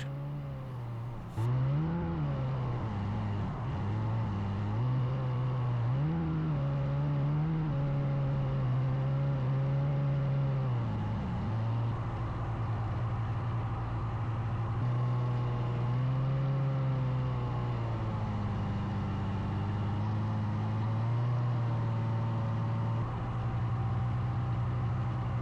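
Snowmobile engine running under way, its pitch rising and falling as the revs change. It gets louder suddenly about a second and a half in.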